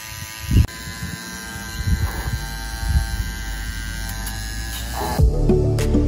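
Small DC motor of a homemade water pump buzzing steadily while it shoots a jet of water, with a sharp knock about half a second in; music takes over near the end.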